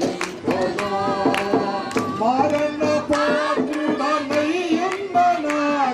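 Telugu Christian devotional hymn music: a pitched melody over a regular beat of percussion strokes.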